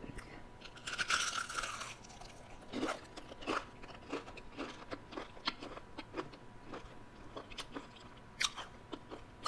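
A person biting into a sauce-topped fried onion ring with a crunch about a second in, then chewing it with scattered small crunches and mouth clicks. There is a short sharp sound near the end.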